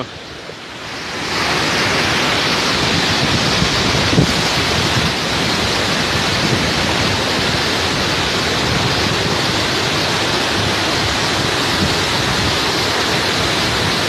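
Waterfall in heavy flood after rain: a dense, steady rush of falling water pounding into the pool below. It is lower for about the first second, then holds at full strength.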